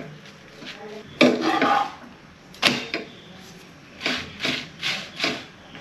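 Kitchen utensils and a pan being handled while making chapatis: a loud clatter about a second in, a sharp knock, then four quick strokes near the end.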